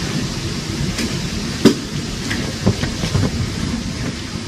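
Hurricane wind gusting against the microphone, a steady rushing noise with a heavy low rumble. Several sharp knocks cut through it, the loudest a little under two seconds in.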